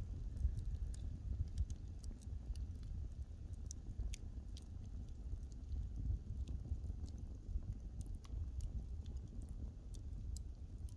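Wood fire crackling: irregular sharp pops and snaps from the burning wood over a steady low rumble.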